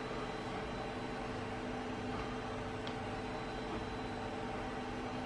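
Steady machine hum with hiss, holding a few fixed low pitches, with one faint click a little after halfway.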